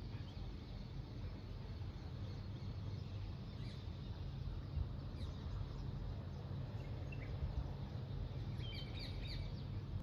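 Small birds chirping faintly and sporadically over a steady low rumble of background noise, with a quick run of repeated chirps near the end.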